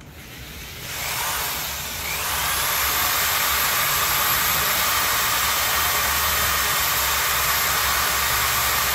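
Electric drill spinning up about two seconds in and then running at a steady high speed with a whine. A strip of sandpaper is held against the spinning hard-plastic threaded part to thin its threads.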